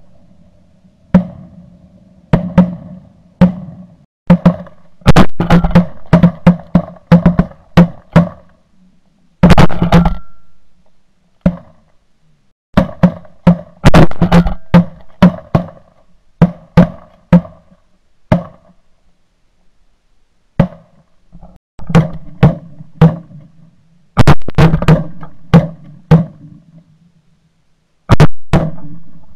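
Shotgun shots at flying geese, about thirty loud, sharp reports in quick runs, each dying away within about half a second, with geese honking between the shots.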